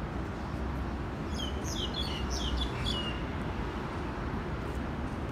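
A small bird chirping a quick run of high, falling notes for about two seconds, starting about a second in, over a steady low rumble.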